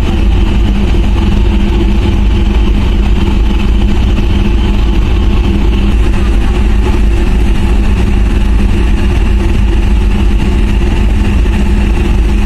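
Car ferry's diesel engines running with a steady low drone and hum as the ship gets under way.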